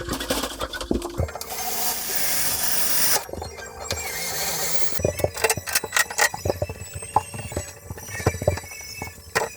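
Building work with tools: a steady hissing, whirring noise lasting about two seconds near the start, then a run of sharp, irregular knocks and clicks.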